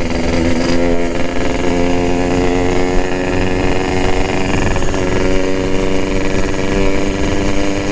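Yamaha RX-King's single-cylinder two-stroke engine running at a steady cruise on the move, its exhaust note holding an even pitch.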